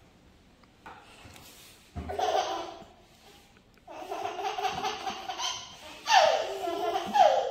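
An eight-month-old baby boy laughing in repeated bursts, building to two loud shrieks of laughter near the end that fall in pitch.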